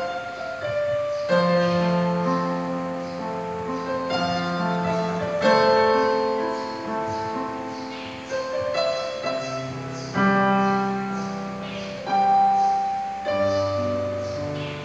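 Yamaha digital piano playing slow, sustained chords, each new chord struck every one to three seconds and left to ring.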